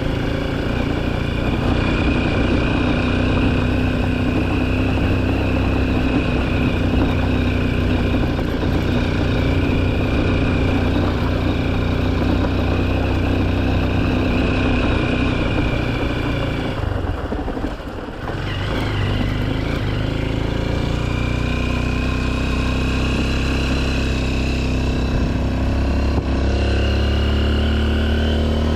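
Honda XR150L's single-cylinder four-stroke engine running steadily under way; a little past halfway the revs drop briefly, then climb again.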